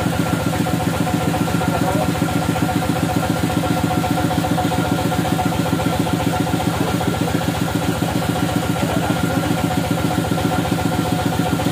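Bandsaw sawmill's engine running steadily at idle, with a fast, even pulse.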